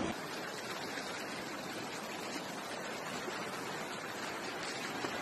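Floodwater rushing through a street: a steady, even rush of fast-moving water.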